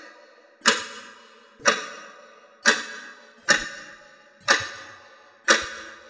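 Clock ticking steadily about once a second: six sharp clicks, each with a ringing tail that fades before the next tick.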